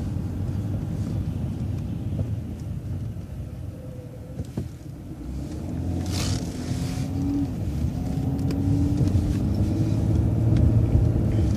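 Transit bus running, a low engine rumble. About six seconds in there is a short hiss of air, then the engine note rises slowly and grows louder as the bus pulls away and speeds up.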